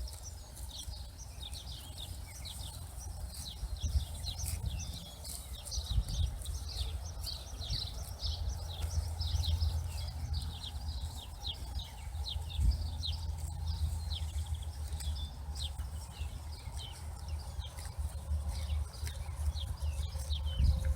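Swallows twittering, a steady run of short high downward chirps, over a low rumble with a few soft knocks.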